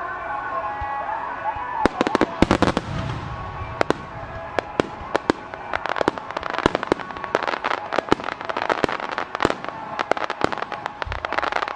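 Starmine fireworks barrage: a rapid string of sharp bangs and crackling shell bursts begins about two seconds in, loudest in a dense cluster at first, then carries on thickly until near the end.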